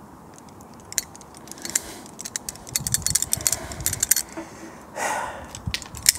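Metal hand tools clicking and clinking against the fittings of an aluminium air-conditioning condenser while working at a seized sensor. The clicks come in a quick, dense run in the middle, with a few more near the end.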